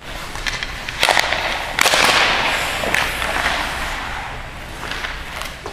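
Several sharp cracks of hockey sticks and pucks on an ice rink, each followed by a long echo off the arena walls, over a steady low hum.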